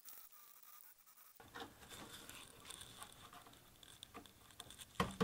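Faint scratching and small ticks of a plastic panel display being pushed into a filed rectangular cutout in an ABS enclosure, with one sharp click near the end as it seats.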